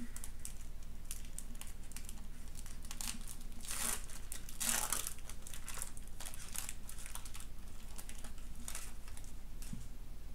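Foil wrapper of a Pokémon trading card booster pack crinkling as it is handled and torn open, in a string of short rustles that are loudest about four to five seconds in.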